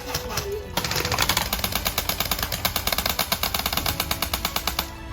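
A BB gun fires on full automatic: a rapid, even stream of shots starts about a second in and stops near the end.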